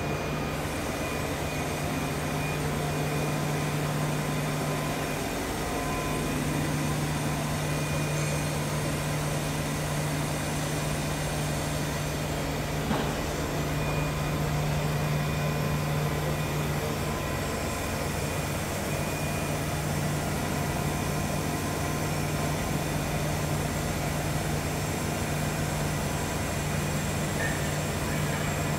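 Doosan Puma 400 LB CNC lathe running with coolant spraying inside its enclosure: a steady low machine hum over an even hiss, with one sharp click about halfway through.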